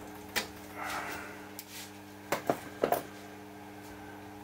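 A few sharp clicks and knocks of cable plugs being pulled from and pushed into the front-panel sockets of an audio analyzer: one about half a second in, two close together past the two-second mark and one shortly after, over a faint steady hum.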